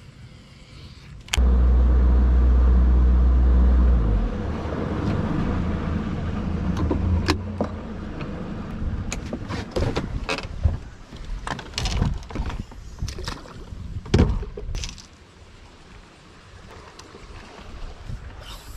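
Boat motor running with a low hum. It starts suddenly about a second in and is loudest for the first few seconds, then runs more softly with knocks and clatter of gear on the boat until it dies down near the end.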